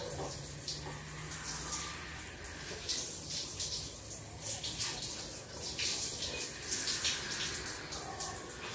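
Shower running, its spray hissing steadily with irregular splashes as water runs through wet hair to rinse out conditioner.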